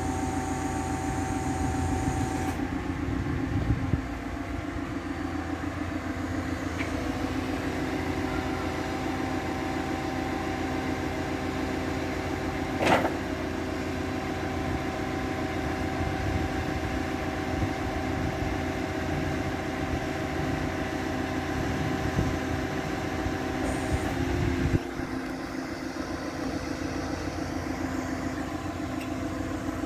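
Liebherr LH24 material handler's diesel engine running steadily at idle. Its note shifts a few times as the hydraulic entry lift is worked, with a single clunk about halfway through.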